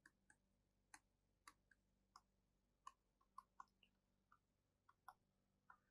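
Faint, irregular clicks of a stylus tapping on a tablet screen during handwriting, over near silence.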